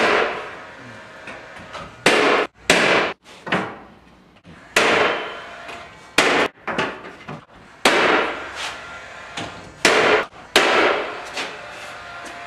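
Pneumatic air nailer driving nails through wooden door casing: about nine sharp shots at uneven spacing, each followed by a fading tail.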